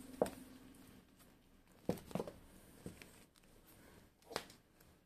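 A few soft taps and brushing sounds, about five in all, as a hand strokes a cat lying on a hard floor. A faint steady hum stops about a second in.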